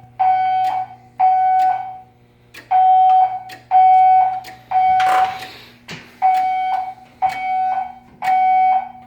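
Fire alarm evacuation signal from the building's voice-evacuation system: a steady-pitched electronic tone beeping in groups of three, each beep about half a second long, with a longer pause between groups. This is the temporal-three evacuation pattern.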